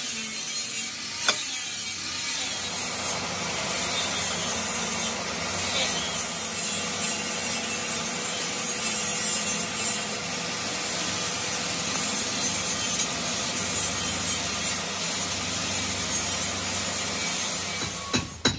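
Metal lathe running, its cutting tool turning a steel plate held in the chuck: a steady scraping hiss of the cut over the machine's hum. A single sharp click about a second in.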